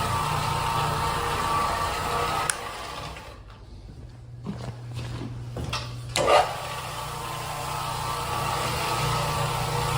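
Floor-cleaning machine motor running with a steady hum; its noise drops away briefly around the middle, with a sharp click before and a louder knock after.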